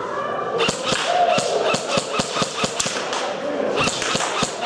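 Airsoft guns firing a rapid run of sharp shots, about four to five a second, with indistinct shouting underneath.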